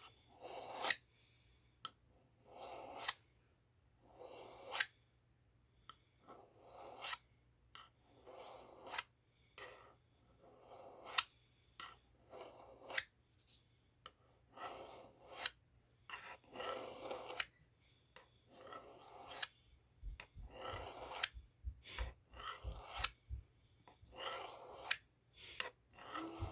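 A cheap butter knife's blade drawn along a steel honing rod, one rasping scrape about every two seconds, each with a sharp metallic tick: the final honing of a freshly sharpened edge. A few soft low knocks come about twenty seconds in.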